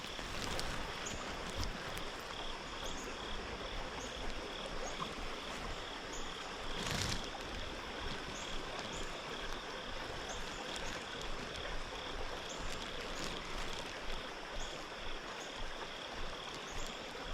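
Frog chorus at a pond: a steady high trill with short high peeps repeating about once a second, over a steady hiss of light rain. One brief knock about seven seconds in.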